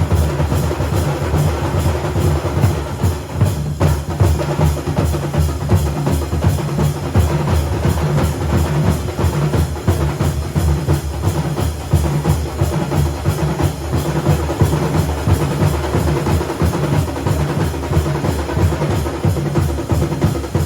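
Loud festival drumming with a heavy bass drum, a fast steady beat that keeps going without a break.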